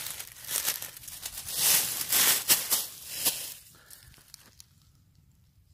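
Dry fallen leaves rustling and crackling in irregular bursts, dying away about four seconds in.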